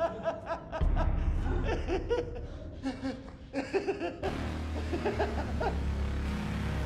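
A man laughing in short, broken bursts over a low rumble. About four seconds in the laughing stops and a steady low drone takes over.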